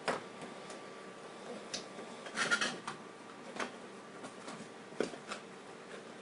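Camcorder retail packaging being opened by hand: scattered clicks and taps, with a brief burst of rustling about two and a half seconds in.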